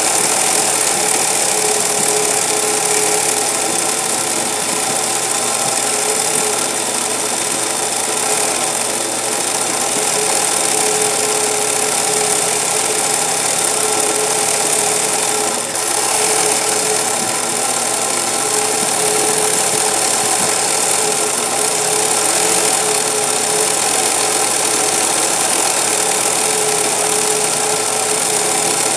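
A 20U industrial zig-zag sewing machine running steadily, its needle bar stitching a satin-stitch edge around an appliqué, with a brief dip about halfway through.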